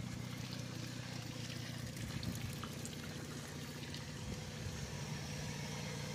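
Water pouring and trickling out of an SUV's floor drain holes as its flooded cabin empties, over the steady hum of an idling engine.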